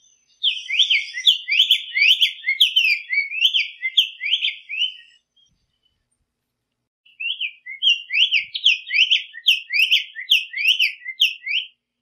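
Black-faced tanager (sanhaço-coleira) singing two phrases, each a quick string of slurred notes at about three a second lasting about five seconds, with a pause of about two seconds between.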